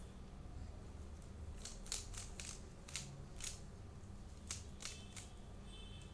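Plastic stickerless 3x3 Rubik's cube being turned by hand: its layers click as they turn, in a quick run of sharp clicks from about a second and a half in, then a few more near the end.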